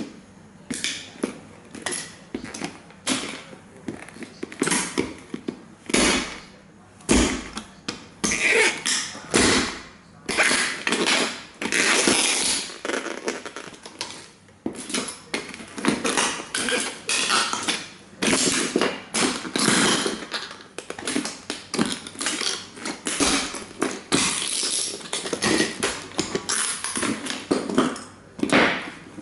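Cowboy boots stomping on and grinding model toy trains: repeated thuds of the heel and sole with the cracking and crunching of plastic bodies breaking apart. It comes in bursts of quick impacts, with long stretches of steady crunching where the boot grinds the pieces.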